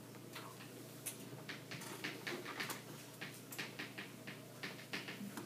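Chalk tapping and scratching on a chalkboard as it writes: a faint, irregular run of short clicks.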